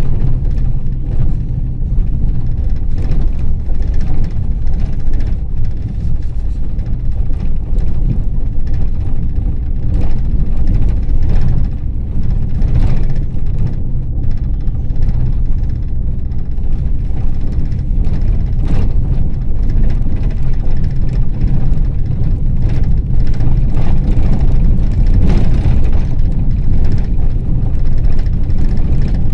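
Ford Transit minibus heard from inside the passenger cabin while driving: a steady low engine and road rumble, with frequent short rattles and knocks as it goes over bumps.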